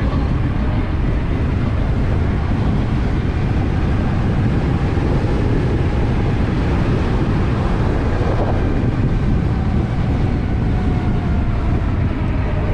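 Heavy wind rumble on the microphone while riding a DIY electric motorcycle, with a faint motor whine that slowly glides up and down in pitch as the speed changes.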